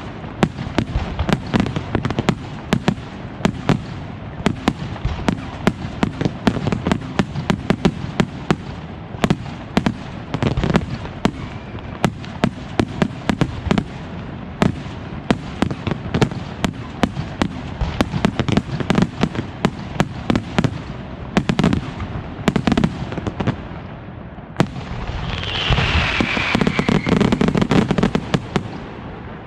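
Fireworks display: a rapid, steady barrage of sharp bangs from bursting shells, several a second. Near the end the bangs give way to a few seconds of louder continuous rushing noise.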